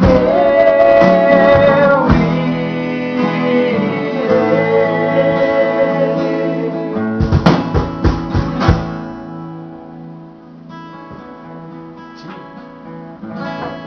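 Closing of a sung hymn with acoustic guitar: voices hold a final note for the first couple of seconds, then a few sharp strummed guitar chords come about seven to nine seconds in, and the guitar rings on more quietly and fades.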